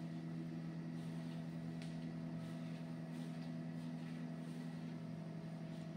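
A steady mechanical hum from a machine running in the room, holding a few constant low tones, with a couple of faint ticks.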